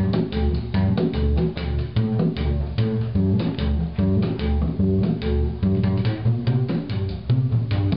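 Homemade upright bass banjo, with nylon trimmer-line strings over an old marching bass drum, plucked in a steady line of low bass notes. Quicker plucked notes from other strings play along above it.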